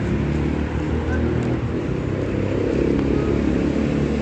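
Road traffic: car engines running steadily as vehicles drive along the street.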